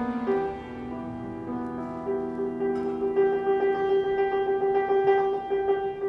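Instrumental background music of slow, held notes, with a long sustained tone coming in about two seconds in.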